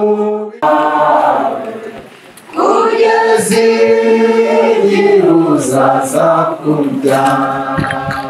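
A group of voices singing a slow hymn together, unaccompanied, fading briefly about two seconds in before coming back in full.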